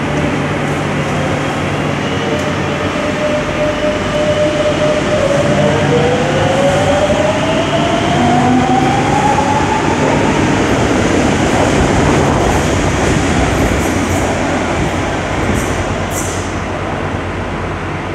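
Madrid Metro electric train pulling out of an underground station: a steady tone, then whines rising in pitch as it picks up speed, over the continuous rumble of the cars on the rails, easing a little near the end as the train leaves.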